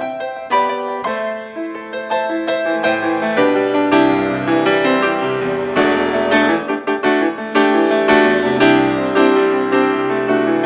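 Piano played solo: a flowing passage of chords and melody notes, with no singing.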